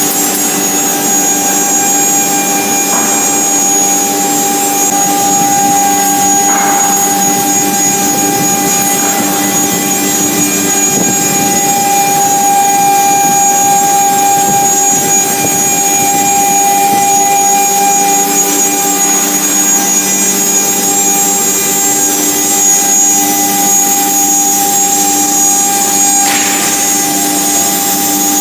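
Heavy-duty ATC CNC router's spindle running at high speed while routing curved grooves into an MDF-type board: a steady whine over cutting noise, with a few faint clicks.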